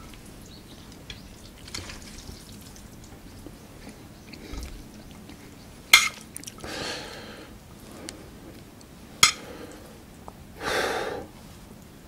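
ASMR eating sounds of jjapaghetti (black-bean sauce instant noodles): faint wet, sticky sounds of noodles being gathered with metal chopsticks into a stone ladle, with two sharp clicks of chopsticks against the ladle about six and nine seconds in, and a louder wet burst about eleven seconds in.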